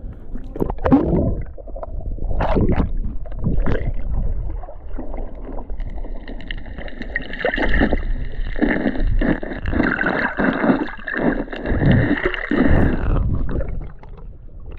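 Water sloshing and gurgling around an action camera during a swim. From about six seconds in, a steady high whine joins it and then cuts off about a second before the end.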